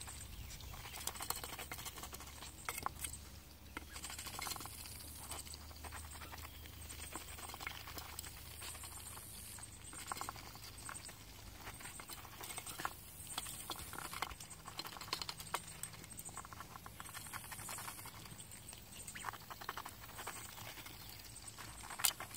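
Ducks feeding from a metal bowl of dry pellets: bills pecking and scooping through the feed make quick, irregular clicks and rustles, with one sharper click near the end.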